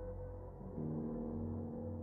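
Background ambient music of sustained, gong-like drone tones, with a new chord coming in a little under a second in.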